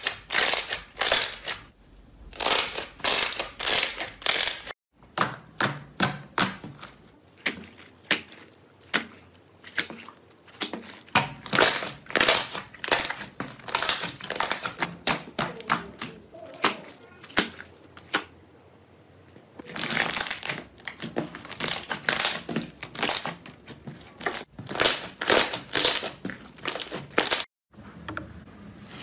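Hands pressing and kneading slime: a fast, irregular run of sticky clicks, pops and crackles, with a short lull about two-thirds of the way through.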